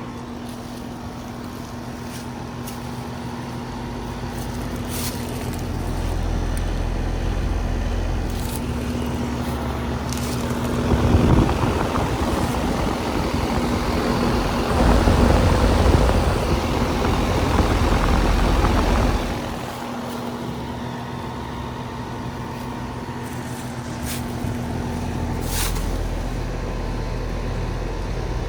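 Outdoor air-conditioner condenser unit running with a steady hum and low rumble. A louder rushing noise swells up for about eight seconds midway and then drops back.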